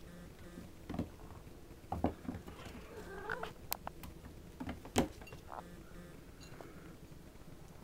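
Kittens play-fighting on a hardwood floor: irregular bumps and thumps of their bodies and paws hitting the wood, with sharp claw clicks. The loudest knock comes about five seconds in. A brief wavering chirp from a cat comes around three seconds in.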